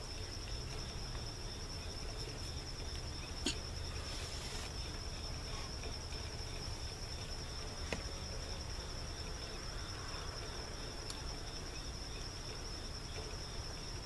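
A steady, high, pulsing insect trill from crickets. There are two light clicks, about three and a half and eight seconds in, from PVC pipe and fittings being handled.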